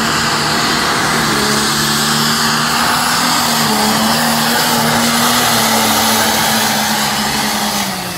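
Diesel pulling tractor's engine running at full throttle under load as it drags the brake sled down the track, its pitch holding steady, then easing off near the end.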